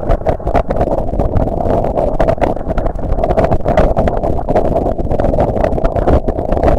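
Boat motor running steadily, with wind and choppy water noise over it.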